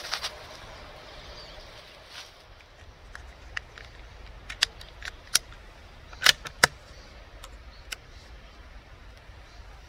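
Handling noise from a scoped bolt-action .22 rifle: scattered sharp clicks and light knocks. There is a short cluster at the very start, then separate clicks from about three seconds in, the loudest two close together just past the middle.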